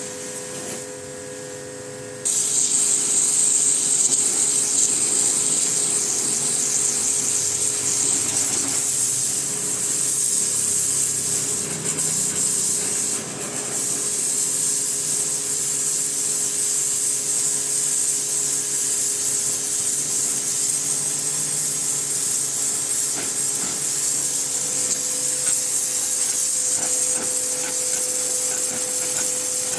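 Pressure washer running with a steady motor hum; about two seconds in the water jet starts and hisses steadily.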